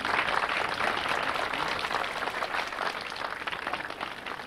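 Crowd applauding, the clapping loudest at the start and dying away toward the end.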